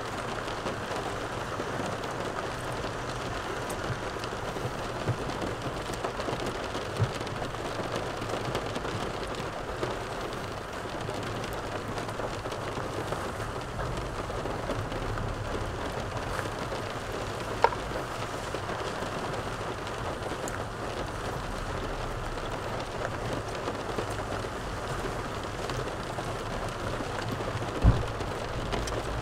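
Steady, even noise inside a car cabin, with a few short sharp clicks of a fork against a plastic takeaway container during eating.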